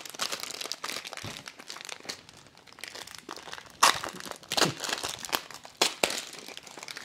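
Clear plastic candy wrappers crinkling and crackling as they are handled and pulled open, with a few louder crackles about four and six seconds in.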